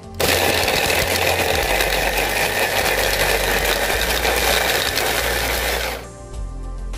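Small electric food processor running, its blade chopping quartered lemons with the skins on into a pulp. The motor starts a fraction of a second in, runs steadily for about six seconds and cuts off near the end.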